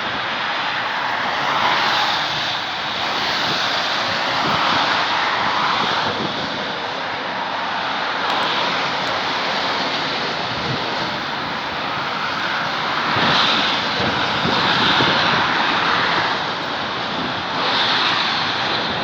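Airplane flying low overhead, its engines making a steady rushing noise that rises and falls in several swells, mixed with the hiss of busy highway traffic.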